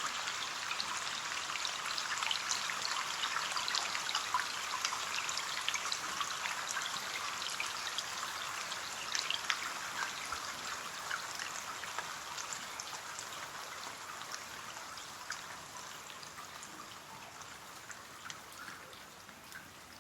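Rain falling on window glass: a steady hiss of rain with many small drop taps. It grows gradually quieter throughout.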